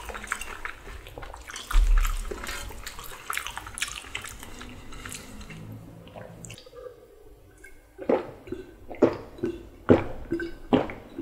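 Close-miked eating sounds of spicy ramen noodle soup: wet slurping and smacking, then a few louder separate mouth sounds in the last few seconds.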